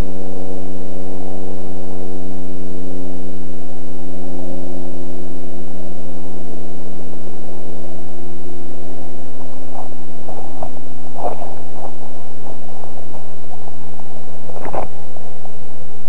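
Steady electrical hum with a stack of overtones over a haze of noise, the camera's poor audio recording. A few dull knocks come about ten to eleven seconds in, and a stronger one near the end.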